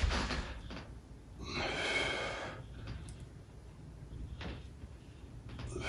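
A person breathing hard from exercise: long, forceful breaths, one at the start and another about a second and a half in. A faint tap comes in the quieter stretch, and another breath begins near the end.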